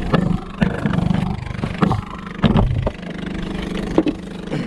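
Small fishing boat's engine running steadily, with several sharp knocks and clicks from handling on board.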